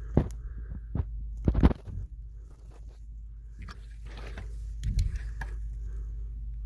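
A few short knocks and scrapes over a low steady hum, the loudest knocks about a second and a half in.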